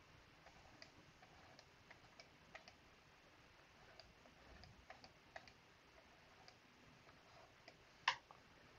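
Faint, irregular clicks of a stylus tapping a pen tablet as handwritten numbers are written, about one or two a second, with a slightly sharper click near the end.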